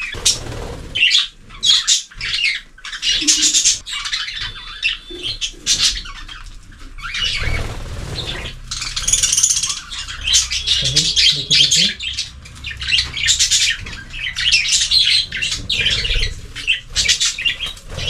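A flock of budgerigars chirping and chattering continuously while feeding, in quick, overlapping high calls.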